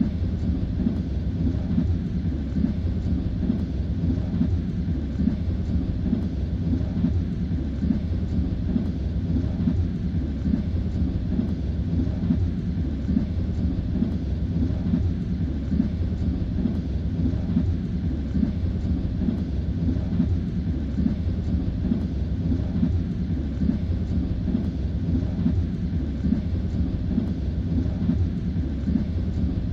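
Steady low rumble of a moving passenger train heard from inside the carriage, with the clatter of the wheels on the rails running under it.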